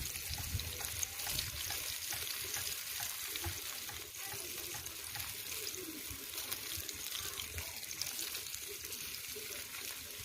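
Hot oil in a frying pan over a wood fire, a steady hissing sizzle with small crackles.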